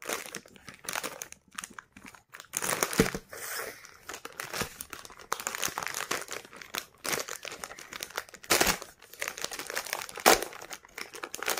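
Plastic food pouch being crinkled and torn open by hand: irregular rustling with a few sharper, louder crackles, the loudest about three seconds in and two more near the end.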